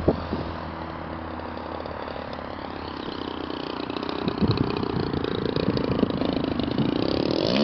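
Engine of a radio-controlled scale de Havilland Gypsy Moth biplane running throttled back on its crosswind landing approach. It is steady, growing gradually louder and slightly higher in the second half as the model comes in low over the grass to land.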